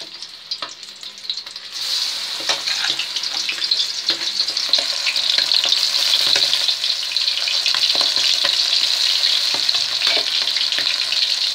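Batter-coated chicken wings deep-frying in hot ghee in a kadhai. A few light ticks, then about two seconds in the sizzle rises to a loud, steady crackle.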